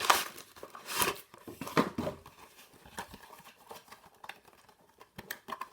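Cardboard box and packaging being handled: three short crinkling rustles about a second apart, then fainter light clicks and rustles.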